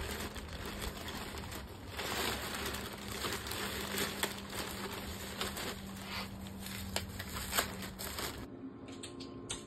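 Fresh ears of corn being husked by hand: green husks tearing and rustling against a plastic bag, a busy run of crackles and snaps. Near the end it cuts abruptly to a much quieter room with a faint steady hum.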